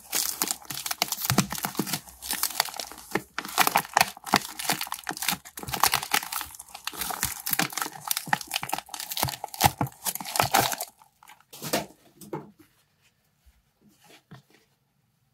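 Clear plastic packaging being crinkled and torn open by hand, a dense crackling for about eleven seconds that then thins to a few faint rustles.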